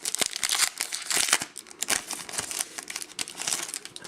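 Foil wrapper of a 2010 Topps Chrome baseball card pack crinkling in the hands with irregular sharp crackles as the pack is opened.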